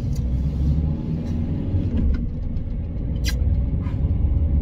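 Steady low rumble of engine and road noise heard inside a moving van's cabin, with a few brief faint clicks partway through.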